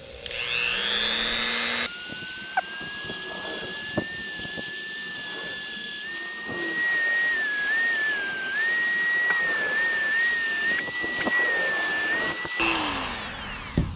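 Dremel rotary tool with a coarse sanding drum spins up with a rising whine, then grinds against the protruding metal pins of a glove box lock cylinder for about ten seconds, its steady high whine dipping slightly as it bears down. It winds down with a falling whine near the end.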